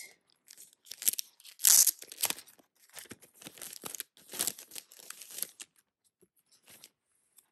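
Clear plastic sleeve rustling in quick crackly bursts as it is opened and a photo card is slid out of it, loudest about two seconds in and dying away to a few faint ticks after about six seconds.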